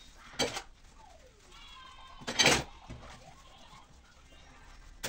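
Dishes and utensils being washed at a kitchen sink, with two short clatters about two seconds apart, the second the louder.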